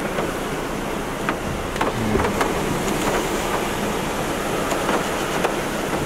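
Typhoon-driven surf and wind heard from inside a car: a steady rushing noise, with a few light ticks scattered through it.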